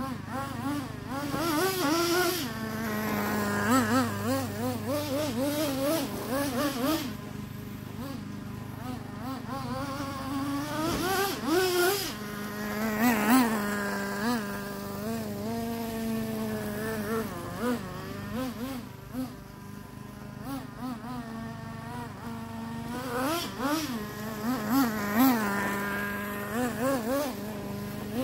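Traxxas Nitro Slash RC truck's small nitro engine buzzing while it drives during engine break-in. Its pitch rises and falls again and again with the throttle.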